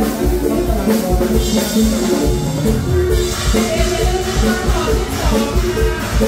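Live Thai Isan (mor lam) band music playing loudly through a concert PA, with a steady drum beat and a male singer's voice over it.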